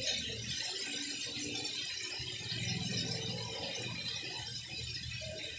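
Breaded chicken pieces deep-frying in a pan of hot oil, sizzling and crackling steadily.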